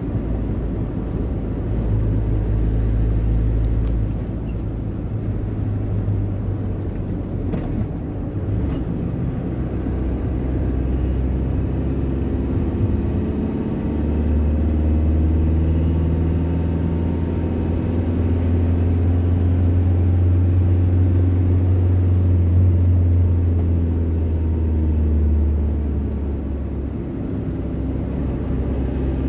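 A car driving, heard from inside the cabin: a steady low drone of engine and road noise. The drone shifts in pitch about four seconds in and again about fourteen seconds in.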